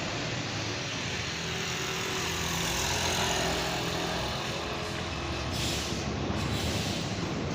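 Heavy truck running past with a low engine note, then a short hiss of air from its air brakes about five and a half seconds in.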